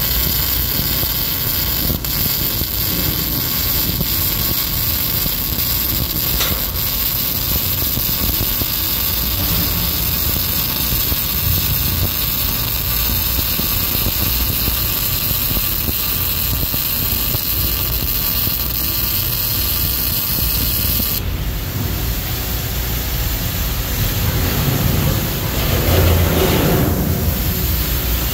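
MIG welding arc on steel running steadily while a bead is laid along a corner joint, cutting off suddenly about three-quarters of the way through. A steady low machine drone continues under it and after it, swelling briefly near the end.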